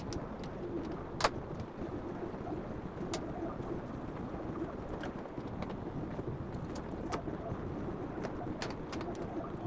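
Bird calls over a steady background hiss, with scattered sharp clicks.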